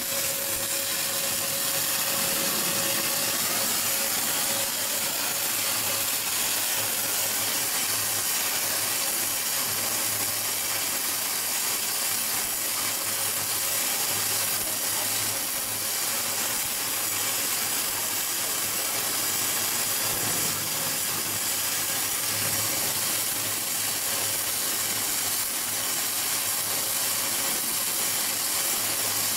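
Wire-fed electric welding arcs crackling and hissing steadily as slip-on flanges are fillet-welded to pipe, over a low steady electrical hum.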